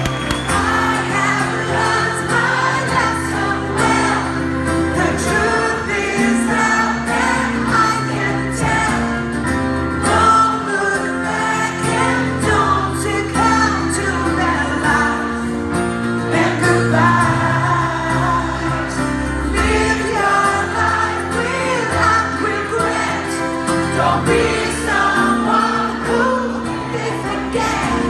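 A woman singing a pop song live into a microphone, accompanied by electric keyboard chords.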